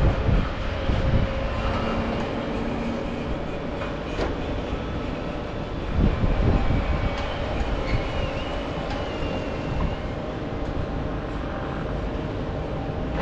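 Crane machinery running with a steady hum while wind rumbles on the microphone, gusting louder at the start and again about six seconds in. A faint, high whine wavers in pitch near the middle.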